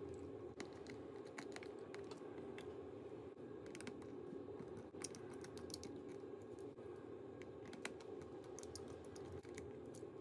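Faint, irregular small clicks and ticks of a precision screwdriver working tiny screws out of the metal display-cable covers on a MacBook Pro logic board, over a faint steady hum.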